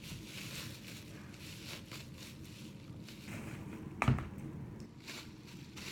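Bubble wrap and slime being handled: soft plastic rustles and crackles, with one louder thump about four seconds in.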